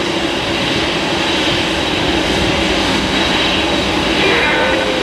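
Jet airliner engines running, a loud steady rush of noise with a faint high whine.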